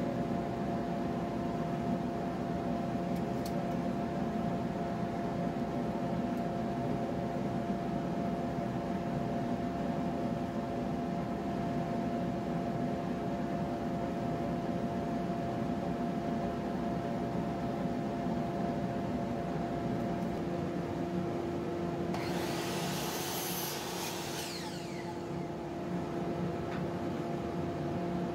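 Shop dust-extraction vacuum running steadily with a constant hum. A harsh hissing rasp cuts in for about three seconds near the end.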